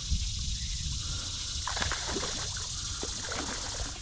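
Creek water running and trickling steadily, with a low rumble on the microphone and a few faint taps about two seconds in.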